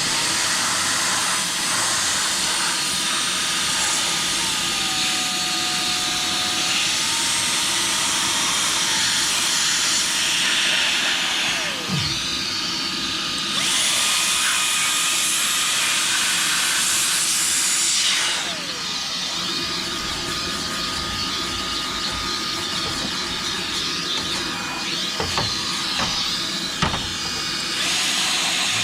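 Battery-powered HiKOKI air-cleaning tool running, blowing or sucking dust out of a fan convector heater: a steady rush of air with a motor whine whose pitch shifts as the speed changes, rising about 13 seconds in and dropping around 18 seconds. A few light knocks near the end.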